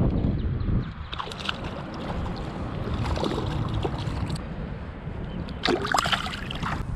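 A hooked shad splashing at the water's surface as it is reeled in, ending in a short burst of heavy splashing as a hand grabs for it in the water. Wind rumbles on the microphone at the start.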